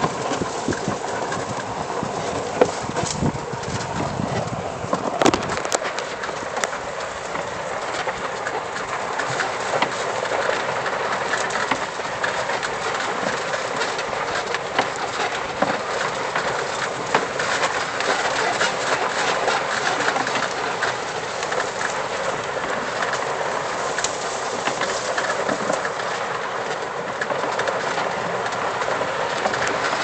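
EZ-GO golf cart driving along a dirt trail: steady tyre and road noise with many small clicks and rattles from the cart.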